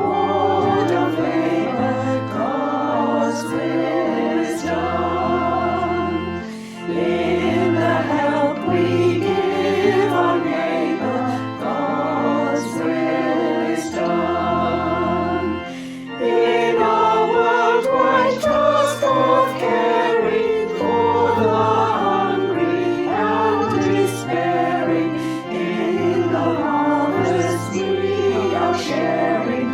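Choir singing with instrumental accompaniment, with brief breaks between phrases.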